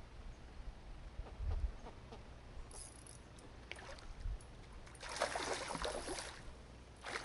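A bass striking a jerkbait at the water's surface: a splash about five seconds in that lasts a little over a second. Before it there are only a few faint clicks over a low rumble.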